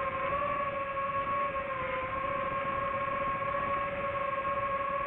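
DJI FPV drone's motors and propellers whining steadily, the pitch dipping slightly about two seconds in and rising a little again.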